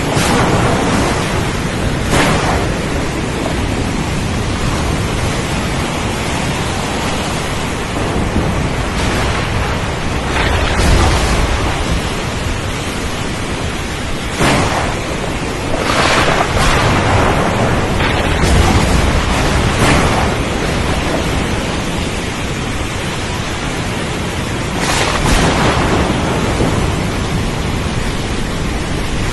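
Heavy rain beating on a window: a steady hiss that swells several times in louder surges, with a low rumble under two of them.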